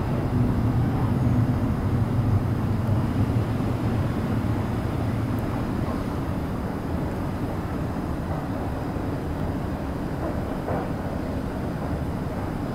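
Low, steady rumble of an underground metro station platform, a little louder in the first couple of seconds and then easing.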